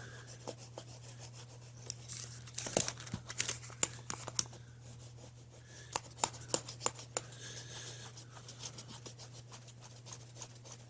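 Eternabond sealing tape being rubbed and pressed down around a ladder's anchor plate: irregular scratching and crinkling with scattered sharp ticks, over a steady low hum.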